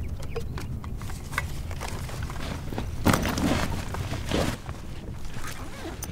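Rustling and scuffing as a backpack and gear are handled on rocky ground, with two louder scuffs about three and four and a half seconds in, over a steady low rumble.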